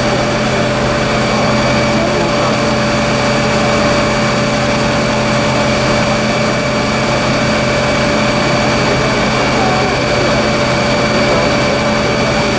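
Fire engines running steadily at the scene: a constant engine drone with a steady whine held over it, unchanging throughout.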